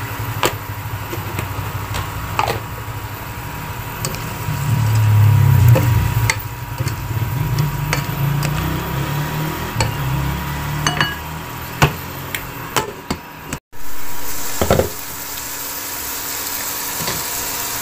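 A spoon stirring chicken intestines in a pot of adobo sauce, knocking and scraping against the pot with scattered clicks. A stretch of low rumble runs through the middle.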